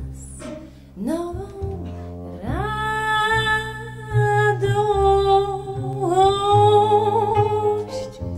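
A woman's voice sings long held notes, scooping up into each one with a slight waver, over a low, steady instrumental accompaniment.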